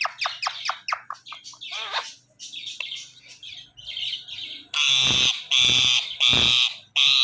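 Indian ringneck parakeet calling: a quick run of short chirps, then four loud, harsh squawks in the second half.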